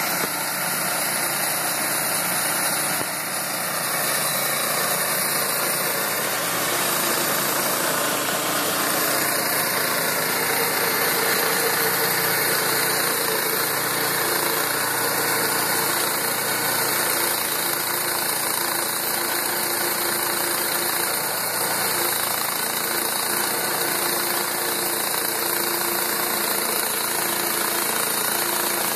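Portable bandsaw mill running steadily: its small engine drives the band blade as it saws lengthwise through a hardwood log.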